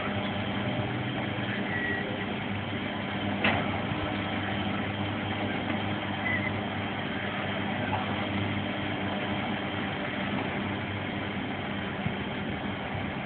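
An engine idling steadily with a low hum, with one sharp knock about three and a half seconds in.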